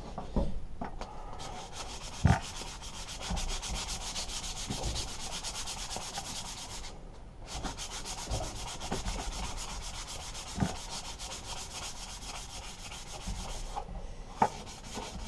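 Hand-sanding a thin metal lawnmower rod with a folded sheet of sandpaper: quick, even back-and-forth rubbing strokes, with two short pauses, one about halfway through and one near the end. A few light knocks are heard among the strokes.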